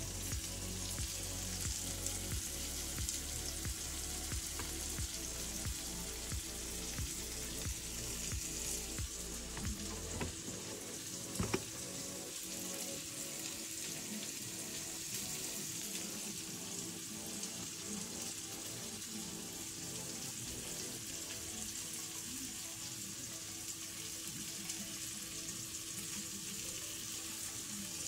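Vegetables sizzling steadily in a pan as they sauté, with one sharp click about eleven seconds in.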